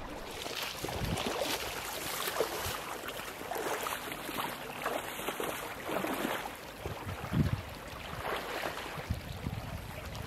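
Wading boots sloshing and splashing through a shallow, fast stream, step after step, over the steady rush of the running water.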